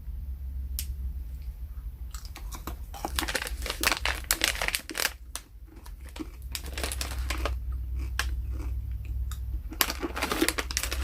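Plastic candy bag crinkling as it is handled, in two spells of quick crackling, the first about two seconds in and the second near the end.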